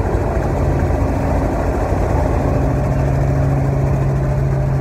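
Robinson R44 helicopter in flight, heard from inside the cabin: the steady, unbroken drone of its engine and rotors, with a strong deep hum.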